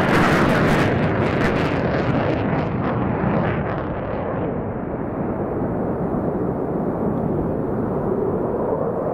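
Loud jet noise from an F-15E Strike Eagle's twin engines just after a low pass, crackling for the first few seconds, then turning duller as the jet flies away.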